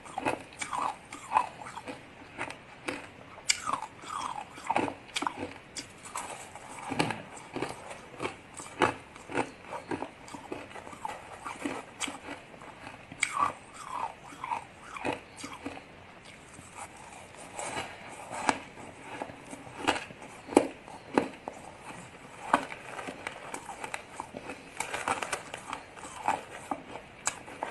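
Ice being bitten and chewed close to the microphone: a string of sharp, irregular crunches and cracks, several a second in flurries with short pauses between.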